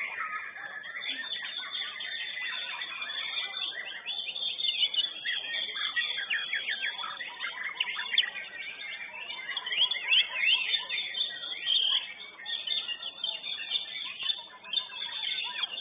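White-rumped shama (murai batu) in full contest song: a fast run of loud whistled phrases with quick up-and-down slides and chattering notes, loudest about eight seconds in and again around ten to twelve seconds in.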